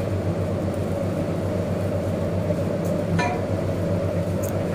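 A steady low rumbling hum from the gas stove flaming under a clay handi, with a metal ladle clinking lightly against the pot about three seconds in and again near the end.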